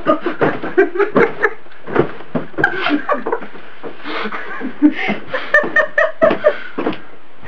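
People laughing hard in many short bursts.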